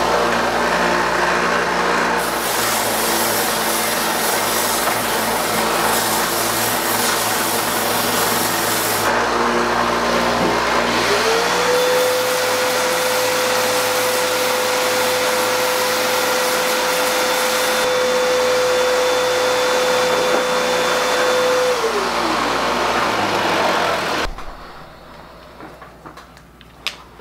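A small belt sander and a shop vac with a cyclone dust separator running together while a maple glide bait's head and tail are beveled against the sanding belt. About eleven seconds in, a steady tone slides up, holds for about ten seconds and slides back down. Both machines shut off near the end.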